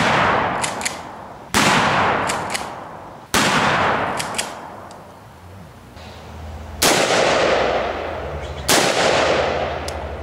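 Five single gunshots from an AR-15-style carbine at uneven intervals, each sharp crack followed by an echoing tail that fades over about a second and a half. A few fainter clicks fall between the first three shots.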